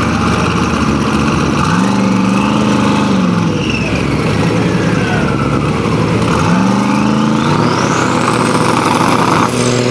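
Drag race car engines running and revving up and down twice, with a high whine that climbs and then falls near the end.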